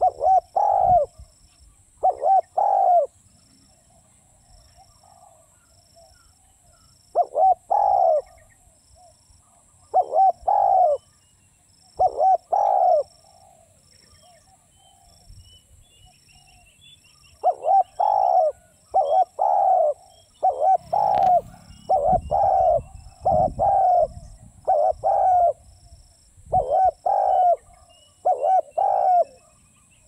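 Spotted dove cooing: short phrases of two or three low coos, repeated every couple of seconds with a few longer pauses.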